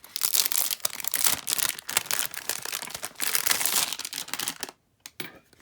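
Packaging being crinkled and torn open by hand, a dense crackling with many small clicks that stops about five seconds in, followed by a few light taps.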